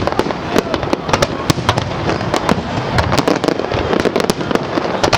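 Fireworks display bursting: a rapid, continuous run of sharp cracks and pops, several a second, over a steady wash of noise.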